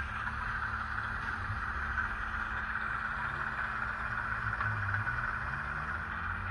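Model locomotive's Zimo MS590 DCC sound decoder playing the Ruston 165 diesel shunter engine sound through its small ESU speaker: a steady running engine rumble that rises and falls a little, with a hiss over it.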